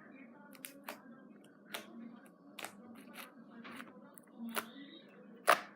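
Fluffy slime squished and stretched in the hands, giving irregular sharp pops and crackles, the loudest near the end.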